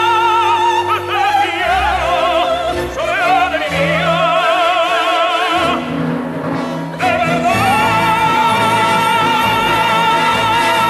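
Soprano and tenor singing a zarzuela duet in full operatic voice with orchestra, their notes wide with vibrato. After a brief break about seven seconds in, a long high note is held with vibrato.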